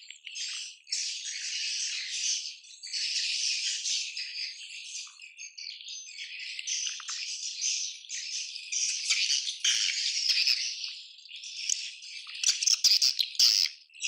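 A colony of swiftlets calling together: a dense, continuous twittering of high chirps and trills, with a run of sharp clicks in the last few seconds.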